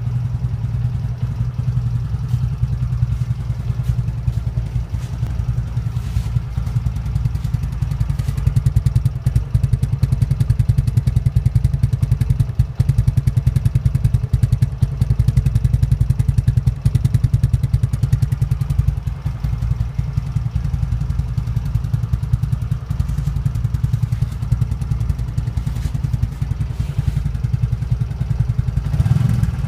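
TVS Flame 125cc motorcycle fitted with a half Bullet-style silencer, running with a steady, rapid thumping exhaust beat and rising briefly near the end.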